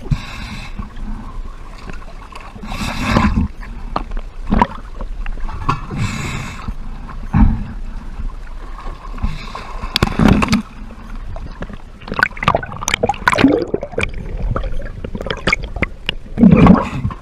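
Sea water sloshing and gurgling around a camera at the surface, with irregular splashes as it dips in and out of the water.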